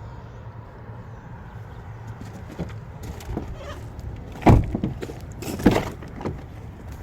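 A few light knocks, then two loud thumps about a second apart, over a steady low rumble.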